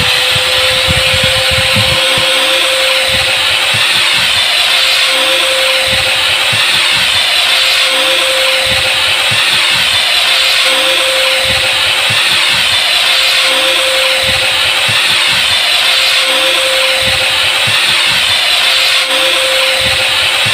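Corded electric angle grinder running at full speed with a steady whine, its disc grinding against a steel box-tube bracket with a loud, continuous hiss.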